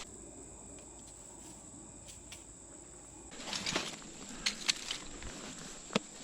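Rustling and shuffling movement with a few sharp clicks near the end, after a quiet stretch, over a steady high insect drone.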